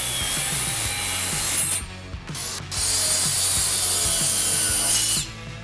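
Saw cutting through a maple board in two steady cuts. The first ends a little before two seconds in, and after a short pause the second runs until about five seconds in.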